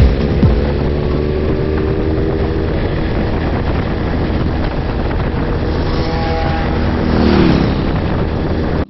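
Motorcycle engine and wind noise at highway speed, the engine note slowly dropping. About seven seconds in, an oncoming motorcycle passes close by, its engine swelling and then falling in pitch.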